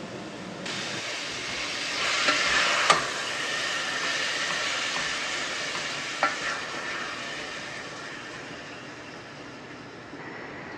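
Ground beef sizzling in olive oil in a stainless steel pot while a silicone spatula breaks it up and stirs it, with a couple of sharp knocks of the spatula against the pot. The sizzle starts under a second in, is loudest about two to three seconds in, then fades gradually.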